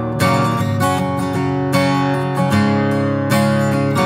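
Background music: an instrumental stretch of a song, acoustic guitar strumming chords that change every second or so, with no singing.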